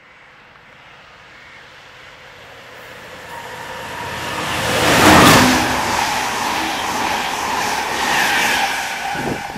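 Chiltern Railways locomotive-hauled train of Mk3 coaches passing through the station at speed. The noise builds steadily as it approaches, is loudest as the front passes about five seconds in, then carries on as a steady rush of wheels on rail while the coaches go by.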